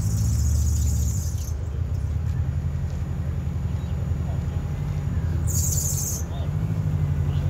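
Low, steady rumble of idling fire-apparatus diesel engines, with two short bursts of high hiss, one at the start and one about five and a half seconds in.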